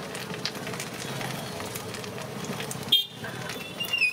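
Onion pakodas sizzling and crackling as they deep-fry in a large kadai of hot oil, with busy street noise behind. A sharp click about three seconds in.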